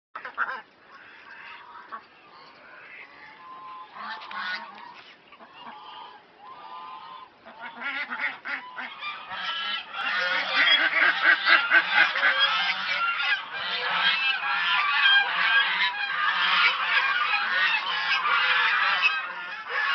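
A flock of waterfowl calling, many overlapping calls at once. The calls are sparse and quiet at first, then grow into a loud, dense chorus about halfway through.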